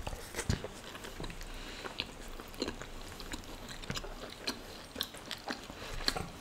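Two people chewing and biting mouthfuls of curry and flatbread, with many short, irregular mouth clicks and smacks.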